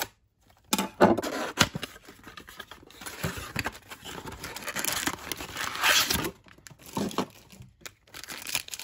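Cardboard trading-card blaster box being torn open and its stack of foil packs pulled out: a few sharp snaps, then about three seconds of tearing and rustling, then more scattered snaps.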